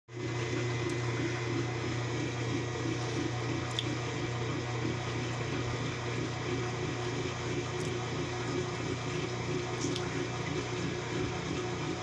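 Top-loading washing machine running, with water rushing in the tub over a steady low hum.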